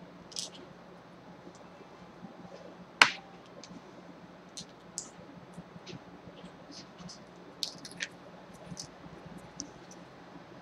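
Scattered small clicks and taps of items being handled during a hand-waxing session, with one sharp, loud click about three seconds in, over a faint steady hum.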